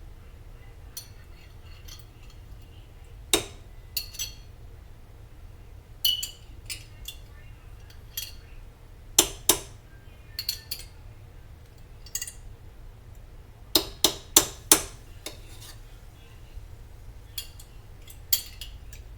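A metal utensil clinking and scraping against the inside of a jar, scraping out the last of the alfredo sauce. The clinks are irregular and sharp, some ringing briefly, with a loud cluster of four about fourteen seconds in.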